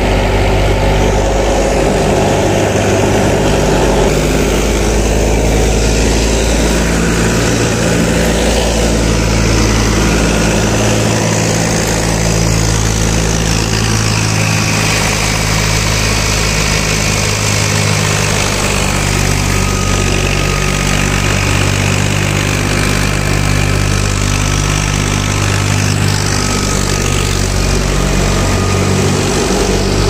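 Tractor engine running steadily while driving a belt-driven wheat thresher, with a constant low drone from the engine and machinery.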